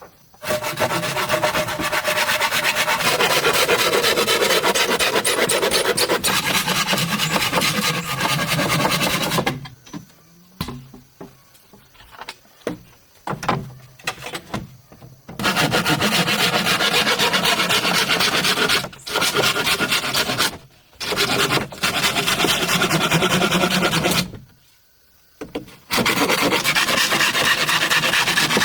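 A hand tool rasping and scraping on bamboo in long continuous stretches of rapid strokes, broken by pauses with a few short knocks and scrapes.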